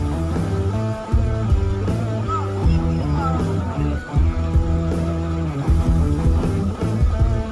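Background rock music led by guitar, with a steady bass.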